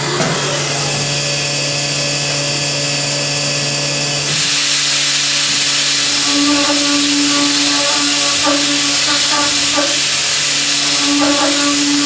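Milling machine running, with a steady hum and whine. About four seconds in, a loud even hiss sets in and carries on, with faint ticks now and then.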